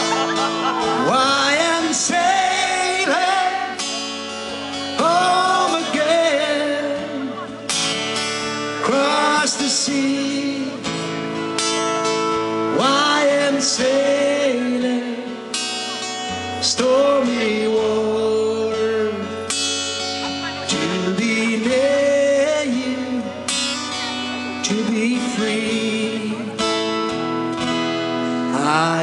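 Live band music: a man singing into a microphone over a strummed acoustic guitar.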